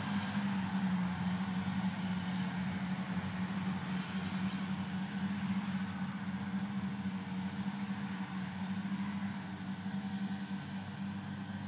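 Claas tractor running steadily under load with its front and side disc mowers cutting grass: a constant engine drone with a steady low hum, easing slightly as it draws away.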